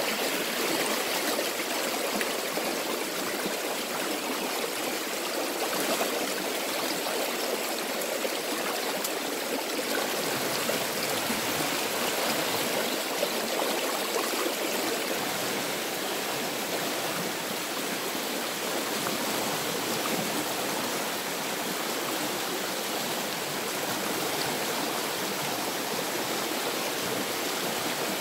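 River water rushing over rocks, a steady, unbroken rush.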